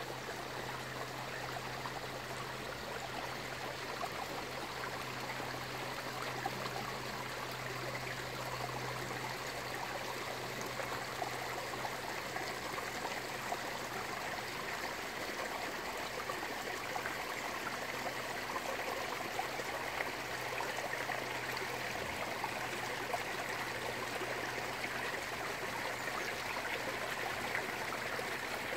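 Water running steadily into a garden pond, a continuous trickling and splashing, with a low steady hum underneath that weakens about halfway through.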